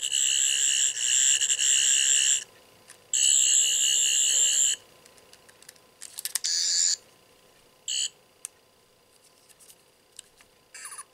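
Toy sonic screwdriver sounding its electronic warbling buzz: one long buzz of about two and a half seconds, a second of about one and a half seconds, then a few short blips.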